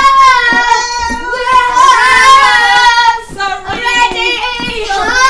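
A young child's high voice singing, holding one long steady note for about three seconds, then going on in shorter, changing notes.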